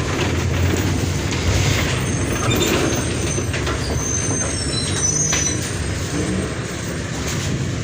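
Mercedes-Benz OF 1722M bus's diesel engine running with a steady low rumble and body rattle, with a few brief high-pitched squeals in the middle.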